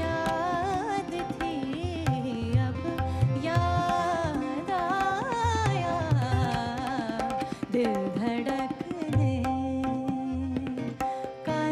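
Ghazal music: tabla strokes keep a rhythm under a sliding, ornamented melody line held over a steady drone.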